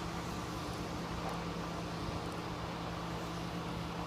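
Steady mechanical hum with a constant low drone and even background noise, unchanged throughout.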